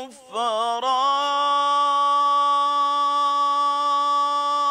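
A male munshid's unaccompanied Islamic devotional chant (ibtihal): after a short breath, a quick wavering melisma about a second in, then one long, steady held note.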